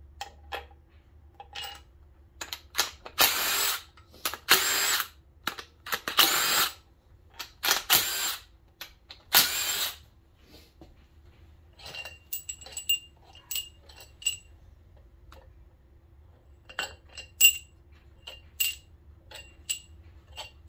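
Cordless impact driver spinning out cylinder head bolts on an LS V8 in about five short runs; the bolts are barely snug. After that come a string of light, ringing metal clinks.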